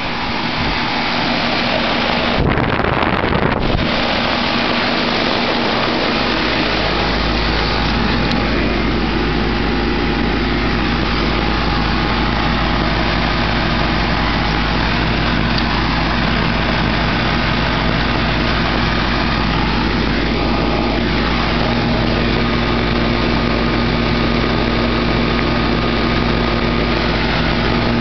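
1999 Goodman 4-ton straight-cool air conditioner condenser running in cooling mode: a steady mechanical hum with fan whoosh. A deeper low hum joins about six seconds in. There is a brief rustling noise about three seconds in.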